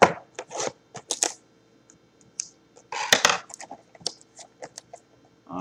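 Small cardboard trading-card hobby box handled on a wooden desk: a sharp knock at the start, a run of light clicks and taps, and a short scraping rustle about three seconds in, followed by a few faint ticks.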